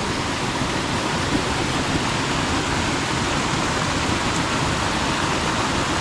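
Tiered waterfall rushing steadily over its cascades, close by.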